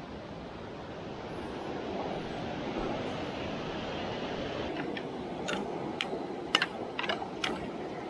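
Steady rushing of river water, with several sharp clicks and knocks from about five seconds in.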